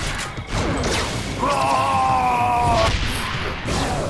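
Cartoon action sound effects: crashing hits, and about a second and a half in, a wavering electronic tone held for about a second and a half.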